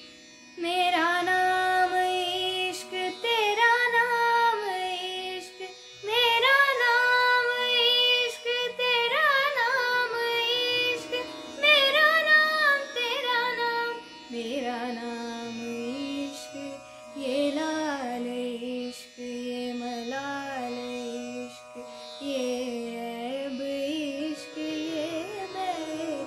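A woman singing a Hindi film song solo, in long held notes that bend and glide, over a backing track of steady low notes.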